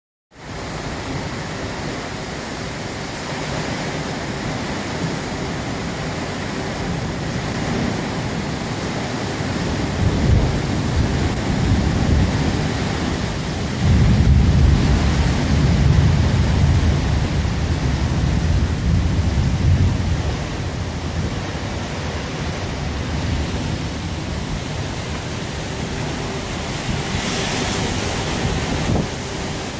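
Heavy rain falling steadily, a continuous hiss of water on wet ground. A deep rumble swells about ten seconds in and again, louder, from about fourteen to twenty seconds.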